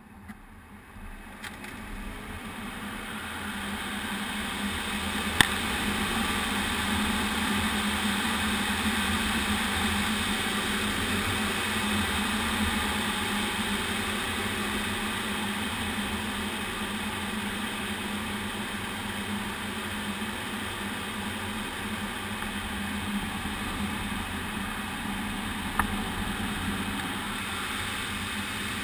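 Airflow rushing past the canopy of an MDM-1 Fox aerobatic glider, growing louder over the first few seconds as it gathers speed coming out of inverted flight, then a steady rush. Two sharp clicks, about five seconds in and near the end.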